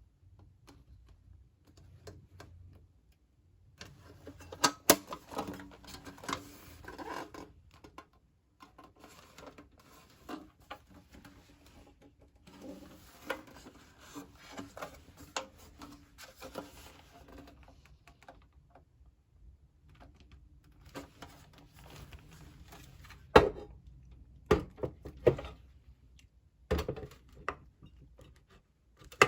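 Handling noises: irregular clicks, light knocks and rustling, with a few loud, sharp knocks in the last third.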